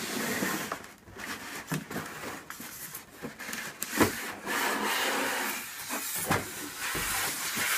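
A block of white foam packing sliding out of a cardboard box, foam rubbing and scraping against the cardboard, with a sharp knock about four seconds in.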